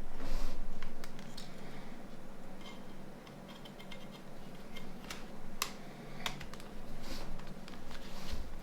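Small plastic phone parts being handled during disassembly and reassembly: scattered light clicks and taps with some soft scraping.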